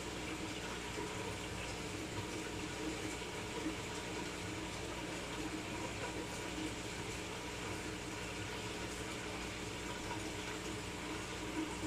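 Steady running water from a large aquarium's sump filtration, with a low steady hum underneath.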